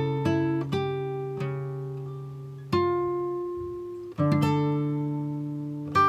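Background music of plucked acoustic guitar, single notes and chords ringing out and fading, with new chords struck about a third and two-thirds of the way through.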